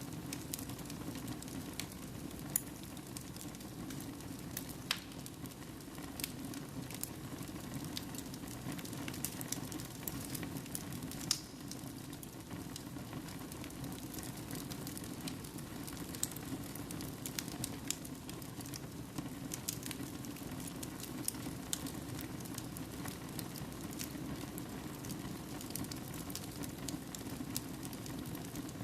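Wood fire burning in a fireplace: a steady low rush of flame with frequent irregular sharp crackles and pops of burning logs.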